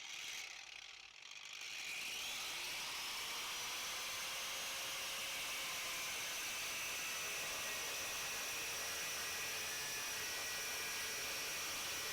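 Angle grinder switched on, winding up to speed with a rising whine over the first few seconds, then running steadily at a high pitch.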